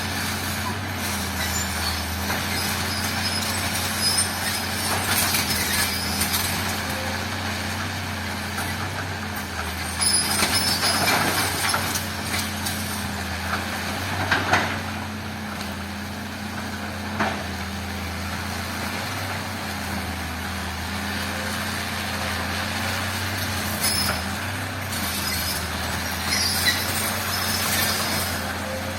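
A heavy diesel earthmoving machine's engine running steadily, with scraping and clattering of rock and metal over it, loudest about a third of the way in and again near the end.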